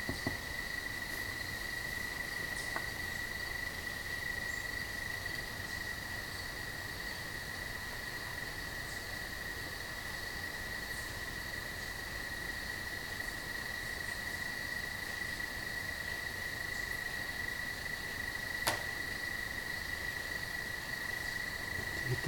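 Crickets trilling in one continuous, steady high tone, with a single faint click near the end.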